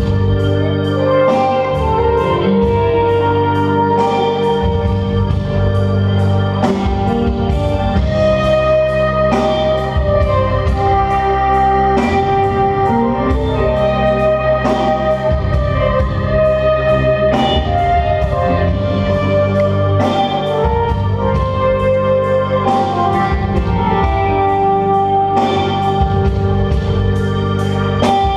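Live rock band playing: long held organ chords over bass guitar, with a steady drum beat.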